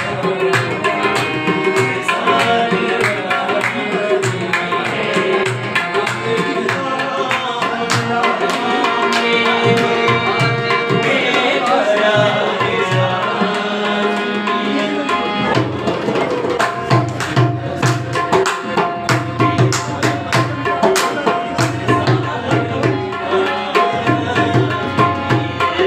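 Two harmoniums playing a sustained reedy melody over a pair of tabla. About halfway through, the tabla's deep bass strokes come in strongly in a steady, even rhythm.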